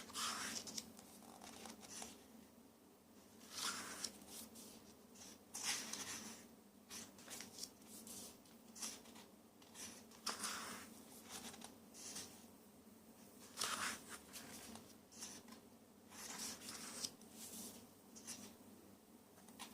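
Faint paper rustling: pages of a photo book being turned by hand, a short rustle every second or two at an uneven pace.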